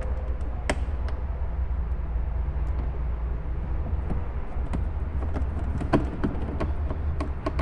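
Scattered clicks and taps of a screwdriver and screws on the plastic dashboard of a children's ride-on jeep being screwed back together, over a steady low rumble.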